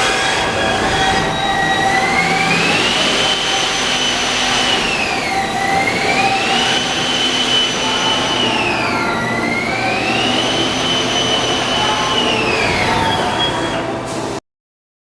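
Haas ST-30 CNC lathe running under power: a whine, most likely from the spindle drive, glides up in pitch, holds, then falls. This happens three times over a steady machine hum, as the spindle speeds up and slows down. The sound cuts off suddenly near the end.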